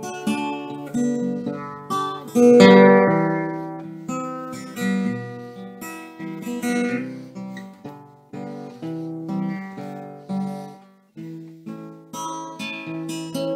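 Solo acoustic guitar played with picked notes and chords, each ringing out, with a loud strummed chord about two and a half seconds in and a brief pause about three-quarters of the way through.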